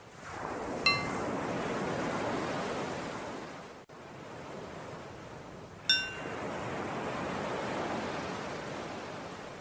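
Two bell strikes about five seconds apart, the second higher in pitch, each ringing briefly, cueing the breath to switch between inhaling and exhaling. Behind them are recorded ocean waves, each breaking wave swelling and then falling away.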